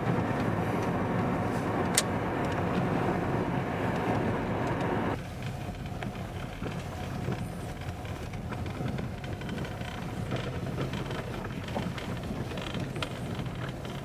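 Car driving on a gravel dirt road, heard from inside the cabin: a steady rumble of engine and tyre noise. About five seconds in, the noise drops suddenly to a quieter, duller rumble. There is a sharp click at about two seconds.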